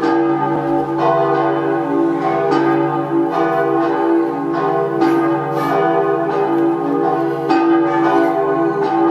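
Several church bells of St. Nicolai, the Lutheran town church, ringing together in a full peal. The strokes overlap continuously, a new strike every half second or so.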